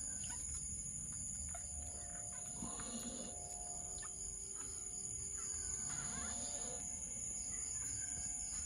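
Newborn puppies nursing, giving faint scattered squeaks and grunts, over a steady high-pitched whine.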